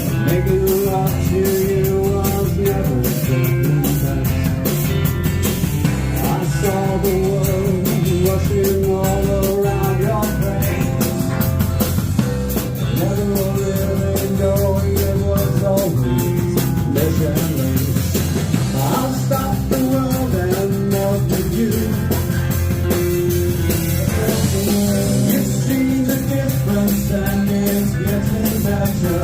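Live rock band playing a song, with a sung lead vocal over drum kit, bass and guitar.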